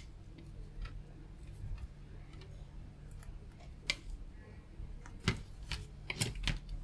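Sparse small clicks and scrapes of fingers working the plastic outer jacket of a cable, with a few sharper clicks in the second half, over a steady low hum.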